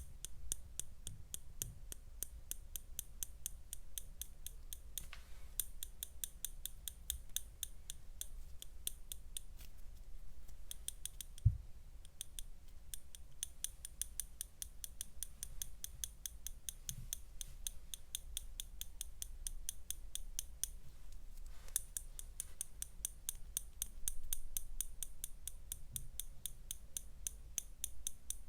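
Fast, continuous clicking of keys being typed on a keyboard, in runs with short pauses, and a single dull thump a little before halfway through.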